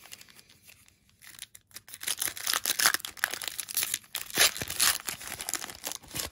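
Foil wrapper of a baseball card pack being torn open and crinkled: a dense crackle that starts about a second in and runs until just before the end.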